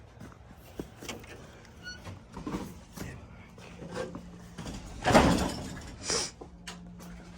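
Greenhouse roofing work: polycarbonate panels being handled, with scattered light knocks and a loud sliding scrape about five seconds in, followed by a shorter one.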